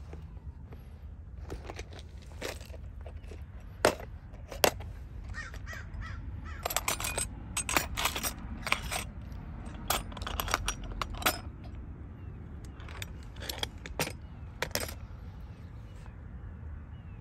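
Clicks, snaps and light knocks of a clear plastic case being opened and the metal camera-cage parts and screwdriver inside being handled, over a steady low rumble. Two sharp snaps come about four seconds in, and a busier run of clicking follows.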